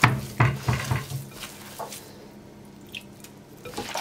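Hands kneading wet minced-meat köfte mixture in a glass bowl. The mix is being moistened with water, giving wet squishing strokes: several in quick succession at the start, a quieter stretch in the middle, and a few more near the end.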